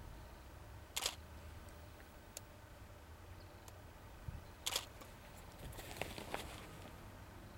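Faint low rumble of a distant diesel locomotive approaching. Over it come two sharp clicks, about a second in and just under five seconds in, and a few softer ticks.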